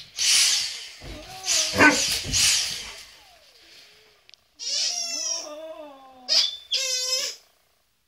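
Alaskan malamutes vocalizing in protest at a vacuum cleaner: rough, noisy grumbling outbursts, then two drawn-out howling calls, the first lower and sagging slightly in pitch, the second higher and steady.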